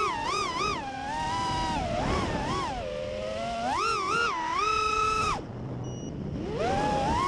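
FPV racing quadcopter's brushless motors whining, the pitch rising and falling quickly with the throttle. The whine drops off about five and a half seconds in and spools back up a second later.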